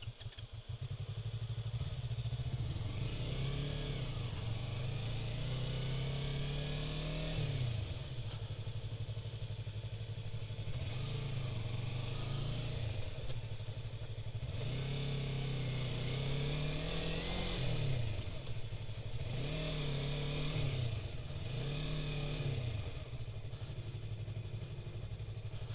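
Sport motorcycle engine running at low speed. Its revs rise and fall several times as the throttle is opened and closed while the bike crawls along.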